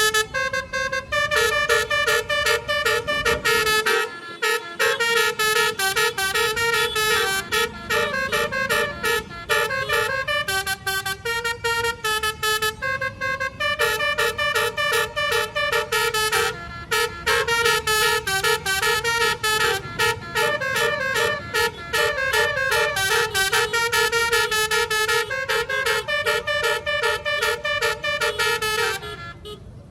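Bus telolet horn of the basuri type playing a fast, many-note melody over and over, with a few short breaks, cutting off near the end.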